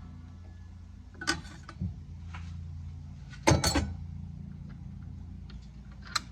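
A few sharp knocks and clinks of tools and saw parts being handled while debris is cleared from a drop saw's blade axle, the loudest a quick cluster about three and a half seconds in, over a steady low hum.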